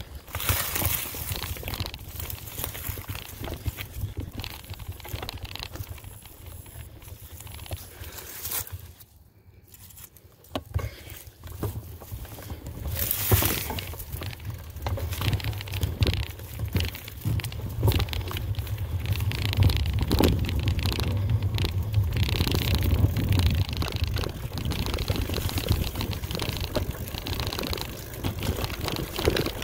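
Mountain bike being ridden, the tyres rolling over the ground with crackling and rattling. The sound dips briefly about a third of the way in, then a low rumble grows stronger for the rest of the ride.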